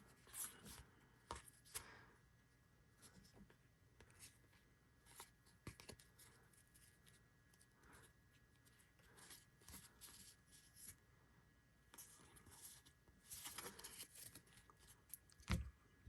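Faint, scattered rustles and soft clicks of baseball trading cards being handled and flipped over, with a denser stretch of rustling about thirteen seconds in and a low thump near the end.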